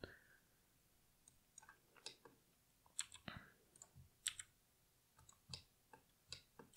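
Faint computer mouse clicks and keyboard key presses, short and irregularly spaced.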